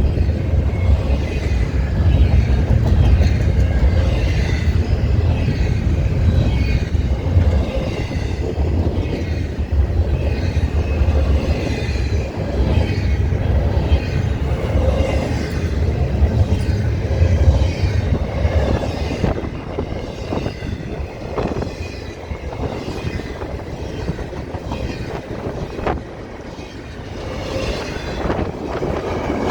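Freight train rolling past, its cars making a steady heavy rumble that eases after about eighteen seconds. A few sharp clicks come near the end.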